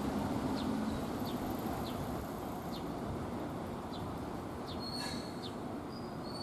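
Low rumble of an electric train running past and slowly fading as it moves away. Over it a small bird gives short high chirps, one every half second to second.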